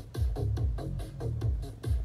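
Electronic dance music with a steady beat: a deep bass kick drum about twice a second and hi-hats between.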